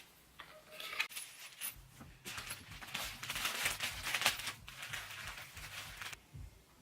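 Rummaging through a bag of loose screws: a plastic bag crinkling while small metal screws clink and tick against each other, in an irregular run of rustles and clicks lasting several seconds.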